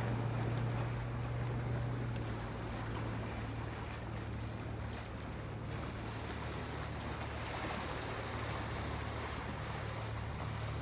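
Steady low hum of a fishing boat's engine over an even hiss of sea and wind.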